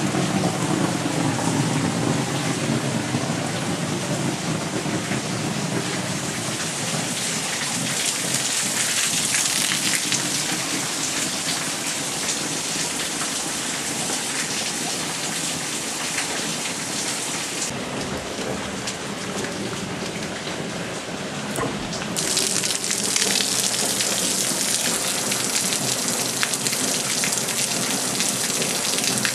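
Heavy rain falling on a greenhouse's plastic-film roof, heard from inside as a steady, dense hiss that eases slightly and then picks up again about two-thirds of the way through.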